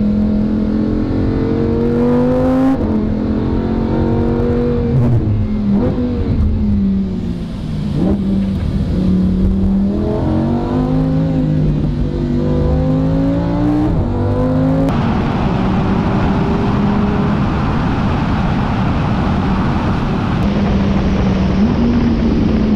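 Lamborghini Huracán EVO's 5.2-litre naturally aspirated V10 under hard acceleration, its note climbing in pitch and dropping back sharply several times as the dual-clutch gearbox shifts. About fifteen seconds in it settles to a steadier engine note under louder rushing wind and tyre noise.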